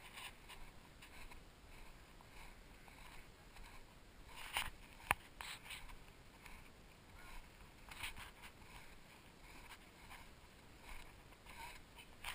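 Faint, irregular scuffing and rustling of movement over snow, with a single sharp click about five seconds in.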